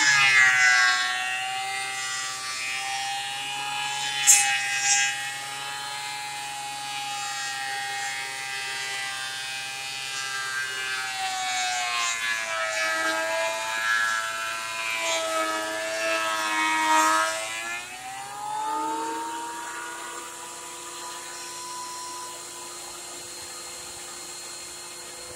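13-inch Ridgid benchtop thickness planer running with a high motor whine as a rough old board feeds through. The pitch sags while the cutterhead is under load and climbs back as the board clears, with a sharp knock about four seconds in. The whine fades out near the end.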